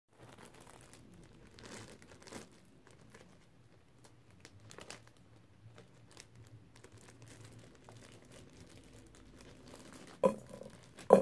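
A plastic zip-top bag crinkling and rustling as it is handled and opened. Near the end, two loud hits with a ringing tone as spiky toy balls drop into a stainless steel bowl.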